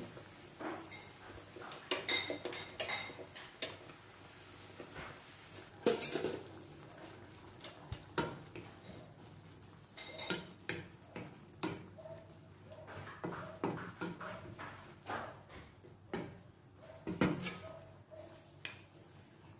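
A wooden spatula stirring a simmering vegetable sauce in an aluminium wok, with irregular knocks and scrapes against the metal pan, some of them ringing briefly.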